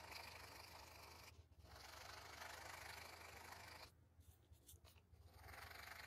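Purple BIC Cristal ballpoint pen scratching faintly on paper in quick shading strokes. The scratching stops briefly just over a second in, pauses again from about four seconds in, and resumes near the end.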